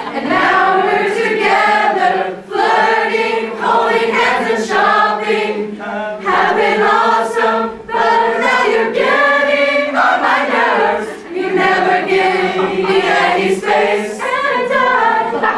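A choir of many voices singing together, with long held notes.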